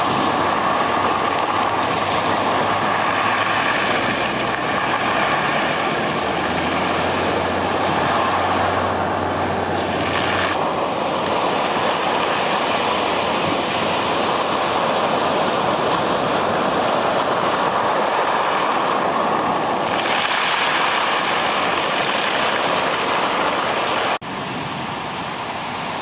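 Steady rush of ocean surf and wind on the microphone. It drops suddenly to a quieter, steady noise near the end.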